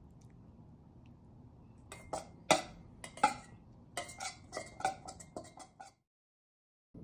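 Cutlery clinking and scraping against a ceramic bowl as rice and raw beef are mixed together: a quick run of about a dozen clinks, two of them sharp and loud near the start. The sound cuts off abruptly about a second before the end.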